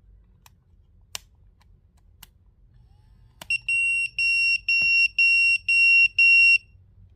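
A few sharp clicks, then an old Panasonic pager beeping as it is switched on: six high, steady beeps in a row, about two a second, which stop after about three seconds.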